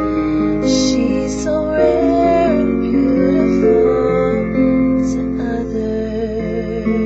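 A woman singing a slow ballad over piano accompaniment, with held piano chords under the voice.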